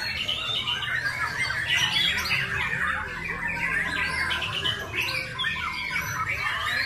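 Many caged white-rumped shamas (murai batu) hung up for a song contest, singing at once: a dense, unbroken chorus of overlapping whistles, chirps and rapid trills.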